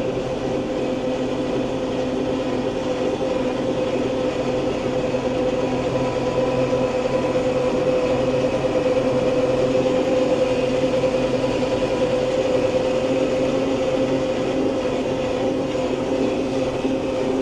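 Kubota MX tractor's diesel engine running steadily, heard from inside its closed cab as a constant drone with a steady high hum over it.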